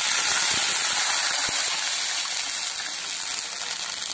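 Water poured into hot tempering oil (tadka) in a kadai with mustard seeds, dried red chillies and curry leaves, hissing and sputtering loudly with a few pops, easing slightly toward the end.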